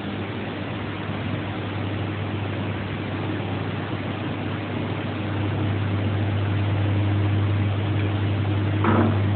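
Steady machine hum: a strong low drone with an even hiss over it, growing a little louder about halfway through. A short sound breaks in once near the end.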